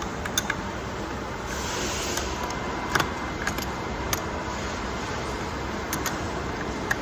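Scattered sharp metal clicks and taps as a 16 mm open-end wrench is fitted and turned on the front wheel's axle nuts, tightening them evenly side to side, over steady background noise.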